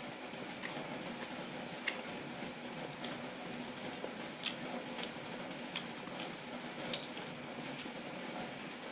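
Close-miked wet eating sounds: chewing and squishing of oily chicken noodles taken up by hand, with a few sharp wet clicks about 2, 4.5, 6 and 7 seconds in, over a steady low background hum.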